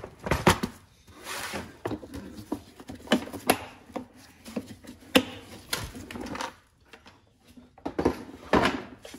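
Hard plastic tool case being shut and handled, with a series of sharp clicks and knocks, then rustling of packaged sandpaper and sanding discs in a cardboard box near the end.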